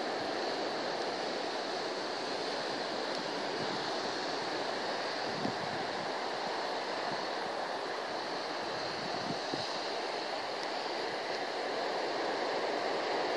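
Steady rushing of ocean surf and wind, with a couple of faint thuds.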